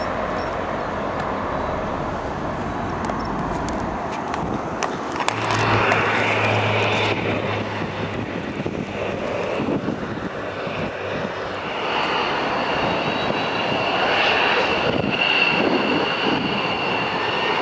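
Military jet engines at taxi power, from a Boeing C-17 Globemaster III and an F-15 Eagle: a steady rumble and hiss, with a high turbine whine that grows stronger in the second half.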